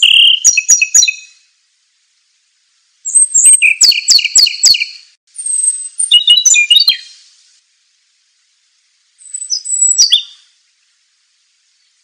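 Songbird singing in four short phrases of high, clear whistled notes and quick repeated chirps, with pauses between them.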